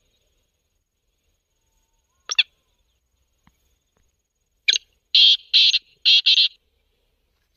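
Black francolin call played through a small portable speaker as a lure: two quick notes a little after two seconds in, a short note near five seconds, then four loud notes in quick succession.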